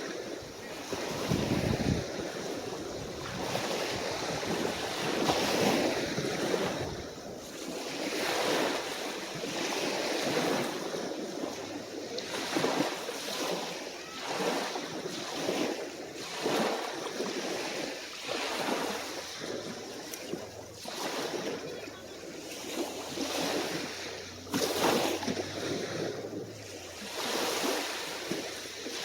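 Small, calm waves breaking and washing onto the shore, one wash every second or two.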